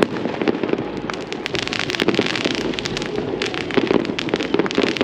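Fireworks display exploding, with many rapid sharp crackles and pops overlapping throughout.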